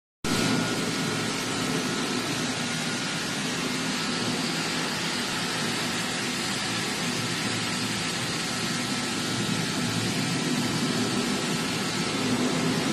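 A machine running steadily: a constant drone with an even hiss over it.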